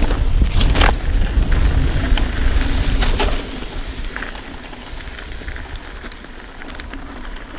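Wind buffeting a helmet- or chest-mounted action-camera microphone while a mountain bike descends rough, rocky trail, with tyre noise and sharp knocks and rattles from the bike. The wind rumble eases off about three seconds in, leaving quieter trail noise and occasional clicks.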